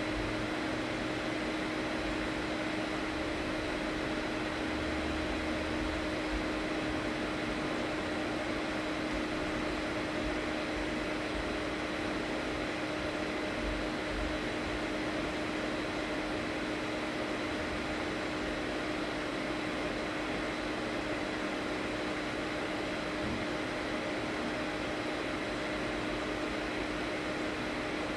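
Steady hum over an even hiss, the sound of a fan or similar small machine running without change.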